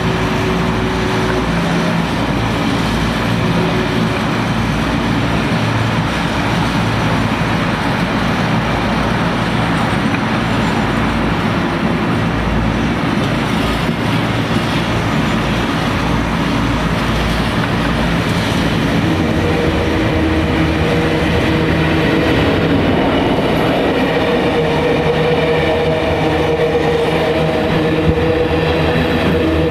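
Diesel-hauled freight train passing, its wagons rolling steadily over the rails, with a diesel locomotive engine note growing stronger in the second half.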